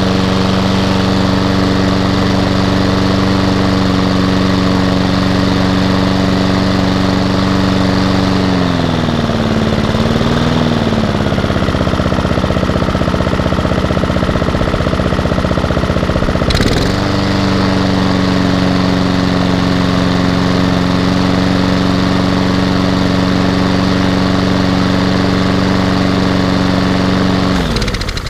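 Honda petrol engine on a Hayter rotary lawnmower running at a steady speed. Its pitch sags for several seconds about a third of the way through, then picks back up after a sharp click a little past halfway. Near the end the engine is shut off and winds down to a stop.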